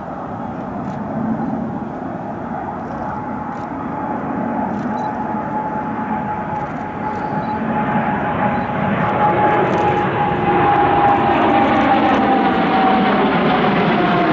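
Boeing 787 airliner flying past low, the noise of its twin turbofan engines growing steadily louder as it approaches. A high whine runs through the roar and falls slightly in pitch near the end.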